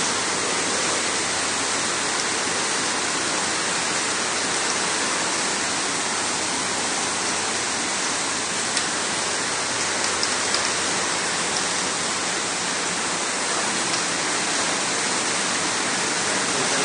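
Heavy rain pouring steadily onto flooded pavement, a constant even hiss.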